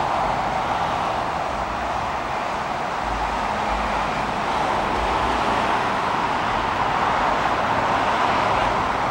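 Steady hiss of road traffic passing nearby, with a few low rumbles.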